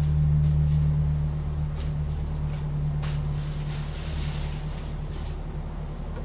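A steady low hum, getting gradually quieter, under a few soft taps and rustles of a cardboard box and packaging being handled.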